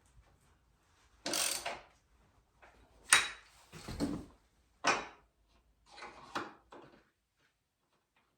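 Hand tools and metal parts being handled during a footpeg installation: about half a dozen short knocks, scrapes and clatters, one of them a heavier thud.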